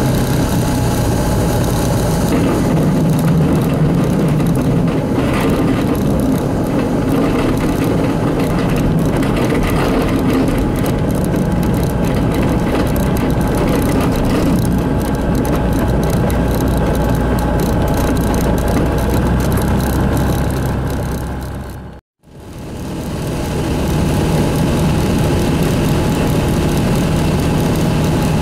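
Ultralight aircraft's engine and propeller running steadily through a takeoff on a snow-covered strip. The sound fades out for a moment about 22 seconds in and comes straight back.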